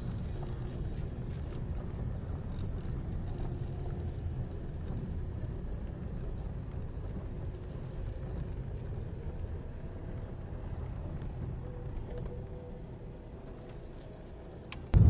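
A car driving slowly along a rough dirt road: a steady low engine sound with tyre and road noise, broken by occasional small clicks and knocks. It grows quieter near the end.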